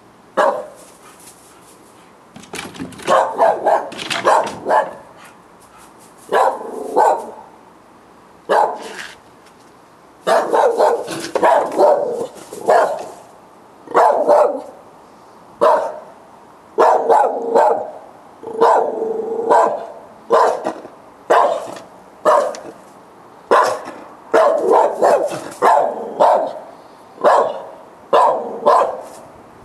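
Dogs barking repeatedly, in quick volleys at first, then settling into a steady run of barks about one every second.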